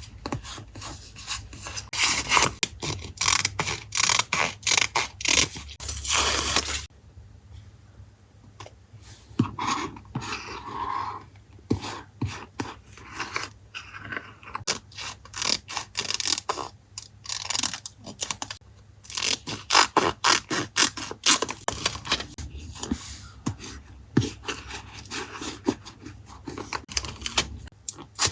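Paper being handled for a journal collage: a run of short scraping and rubbing strokes with small taps and rustles, densest in the first several seconds, quieter for a while, then busy again.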